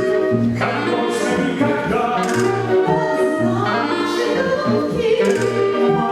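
Music: singing over instrumental accompaniment, with a bass note repeating about once a second.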